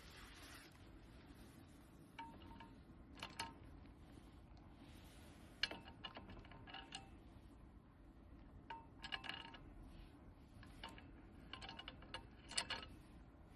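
Faint, irregular metallic clinks and taps, each with a short ring, as the steel parts of a dip station are handled and knocked against each other while being fitted together.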